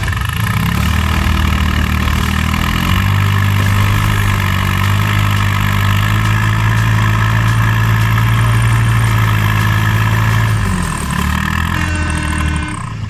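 Heavy diesel engine of an excavator running under load: it revs up in two steps near the start, holds a steady high speed with a whine over it, and drops back toward idle near the end.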